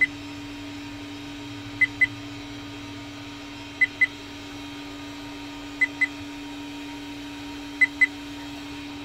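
VIOFO A129 dashcam giving a short high-pitched double beep every two seconds, five times, the warning it sounds over a memory card fault.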